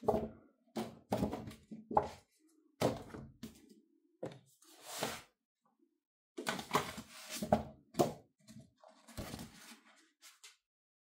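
Large spiral-bound wall calendars being handled on a table: irregular light knocks and thuds as the card-backed calendars are picked up, set down and bumped together, mixed with a few longer swishes of paper and card sliding and flipping. The handling stops shortly before the end.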